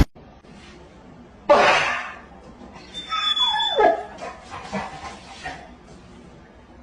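A dog barks once about a second and a half in, then gives a longer yelp that falls in pitch, followed by fainter yips.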